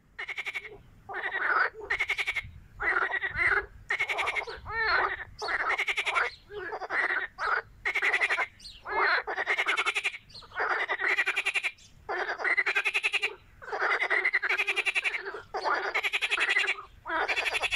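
Two or more frogs calling in a pond: a pulsed croak repeated over and over, one call every second or so, with overlapping voices.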